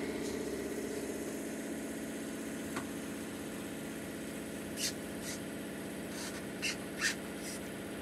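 Steady motor hum made of several even tones, with no change in pitch. A few short scratchy rustles, from about the middle onward, as fabric is rubbed and pressed against the door panel.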